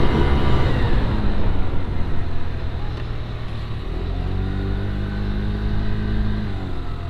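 Scooter engine running, its pitch dropping as it slows about a second in, then rising again as it speeds up about four seconds in.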